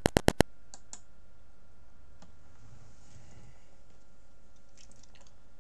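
Clicking at a computer: a quick run of about six loud clicks at the very start, then scattered faint clicks with a small cluster near the end, over a faint steady hum.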